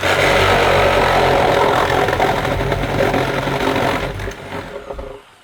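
Reciprocating saw running hard, cutting through nailed boards, then slowing and stopping about a second before the end.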